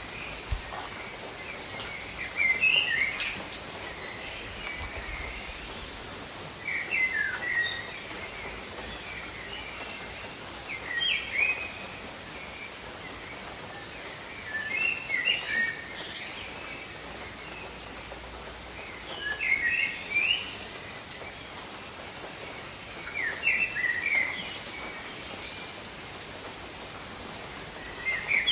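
Steady gentle rain with a songbird singing short, quick phrases about every four seconds, the song louder than the rain.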